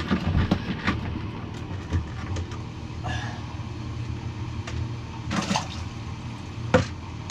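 Steady low hum of a diesel heater running inside an ice shack, with a few knocks and a sharp hit near the end as a fish flops and lands in a bucket.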